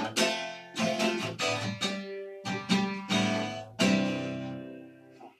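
Acoustic guitar strumming the closing chords of a song, without singing. A final chord about four seconds in rings and fades out.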